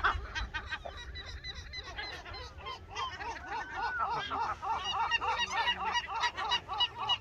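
Many gulls calling together: short, rapidly repeated cries overlapping one another, growing denser and louder from about three seconds in.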